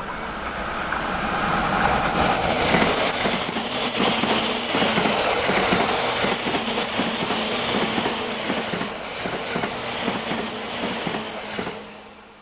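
JR East E353 series limited express electric train running past at speed. Its wheels knock rhythmically over the rail joints, and the sound cuts off sharply near the end as the last car goes by.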